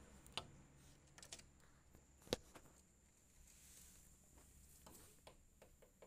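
Near silence broken by scattered small clicks and taps, with one sharp tap about two seconds in: a black-capped lory's beak and feet on the window glass and ledge.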